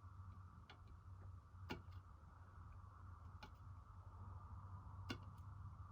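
Faint, irregular clicks of small hand tools (needle, screwdriver, pliers) being handled, about five over several seconds, over a steady low hum.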